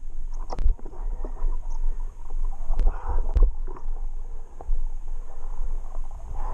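Stand-up paddle board moving through shallow water: a steady low rumble from the board-mounted camera, with scattered short knocks and splashes from the paddle and board.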